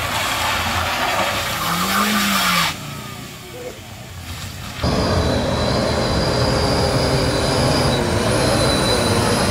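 A small car grinding over a rough, broken gravel road surface. About five seconds in it changes abruptly to a Hino 500 truck's diesel engine working under load up the slope, steady, with a thin high-pitched whine over it.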